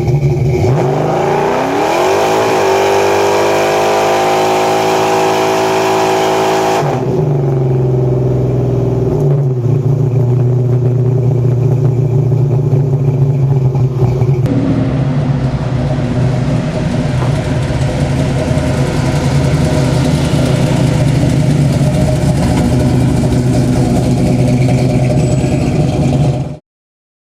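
Chevrolet 502 big-block V8 crate engine, fitted with an aftermarket cam and Alien intake, revving up hard in the first couple of seconds and pulling at high revs. About seven seconds in the engine speed drops, then it runs steadily at a lower pitch until it cuts off near the end.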